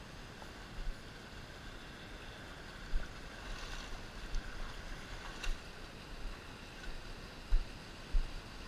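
Steady rush of a shallow stream flowing over rock slabs, with a few short low thumps.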